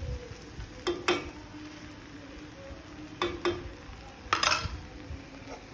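A metal spoon knocking and scraping against a metal cooking vessel in three short clusters of clinks, each leaving a brief ringing.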